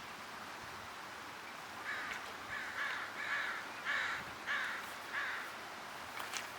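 A crow cawing about six times in a row, over a steady background hiss.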